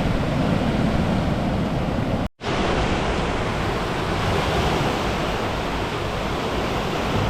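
Ocean surf breaking on a beach: a steady rushing wash of waves, cut off for a split second a little over two seconds in.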